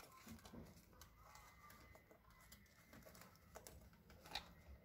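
Near silence, with faint rustling and a few light taps as bias binding and clear plastic are handled on a sewing machine bed.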